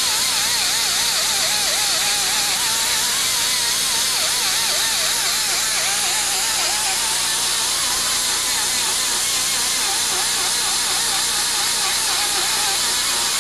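High-speed die grinder with a carbide burr cutting into an aluminium Harley-Davidson Evolution cylinder head, roughing out the combustion chamber to a hemispherical shape. A steady hissing whine whose pitch wavers continually as the burr bites into the metal.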